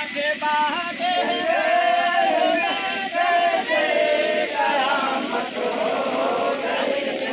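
Several voices singing together in a drawn-out melodic chant, with long held notes that waver in pitch.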